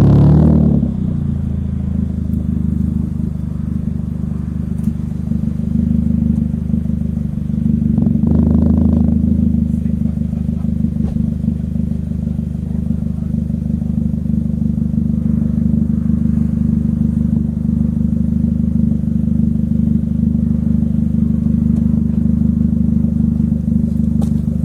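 Ford Fiesta Mk7 1.4 16-valve petrol four-cylinder idling steadily through a Simoni Racing ESR086 aftermarket exhaust. It settles from a rev at the start and gets one short blip of the throttle about eight seconds in.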